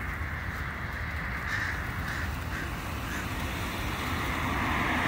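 A flock of crows cawing overhead, many calls overlapping, over a steady low rumble. A vehicle's sound starts to build near the end.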